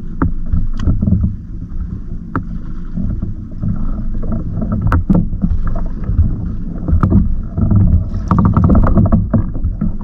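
Choppy sea slapping and lapping against a fishing kayak's hull, with wind buffeting the microphone in a steady low rumble. Sharp knocks and clicks come every so often, and a quick run of them comes near the end.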